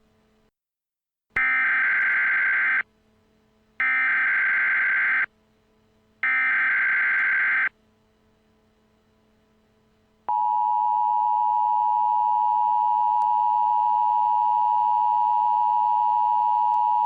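Three Emergency Alert System SAME header bursts, the warbling digital data tones that open an EAS alert, each about a second and a half long with a second's gap between them. About ten seconds in, the steady two-tone EAS attention signal begins and holds.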